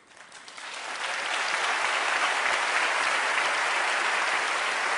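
Large seated audience applauding, swelling over the first second and then holding steady.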